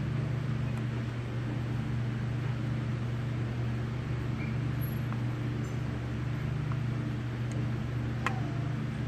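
Steady low background hum with a few light metallic clicks of a screwdriver turning small screws into a two-barrel carburetor body; the sharpest click comes about eight seconds in.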